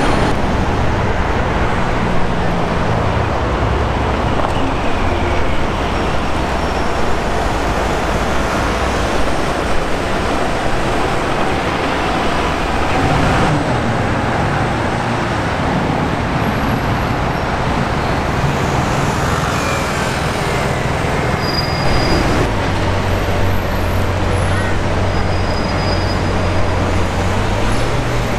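Busy city-street traffic with car engines running at low speed. About three-quarters of the way through, a steady low engine drone sets in, as of a car idling close by in the traffic queue.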